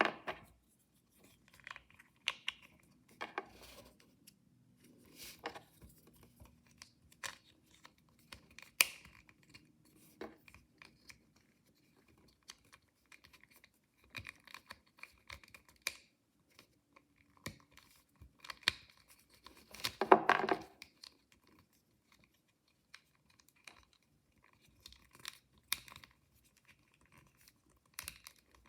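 Hands opening blind-box toy packaging: scattered clicks and taps of small plastic pieces with paper and plastic rustling, and one louder half-second rip of packaging about twenty seconds in.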